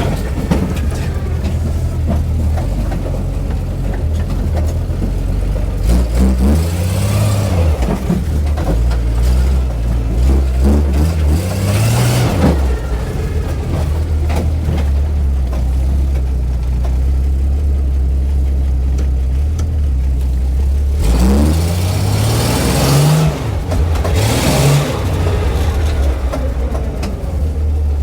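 1980 Jeep Cherokee Chief engine running while driving, its pitch rising and falling back several times as it accelerates, with a steady low note in between.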